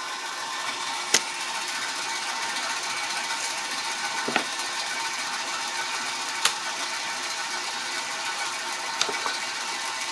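Bandsaw running steadily without cutting, with a few light knocks as the cut wooden strips are handled on the plywood sled on the saw table.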